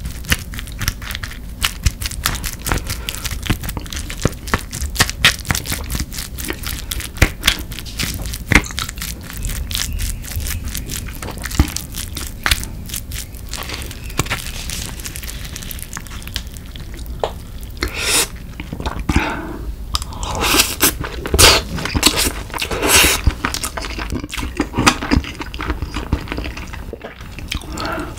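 Close-miked eating sounds: a wooden spoon scraping and mixing rice inside a snow crab shell, with dense wet clicks, followed in the second half by louder, more spaced scraping and chewing sounds.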